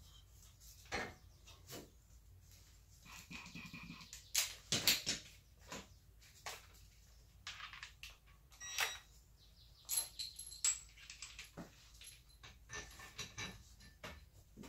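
Scattered faint clinks and knocks of hand tools against metal exhaust parts, a few with a short metallic ring.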